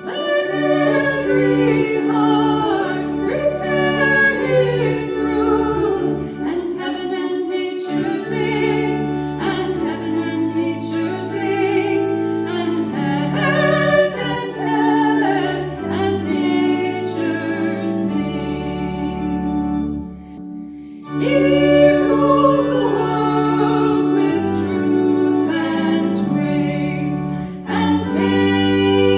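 Sacred music: a voice singing with vibrato over sustained organ chords, with a short pause between phrases about two-thirds of the way through.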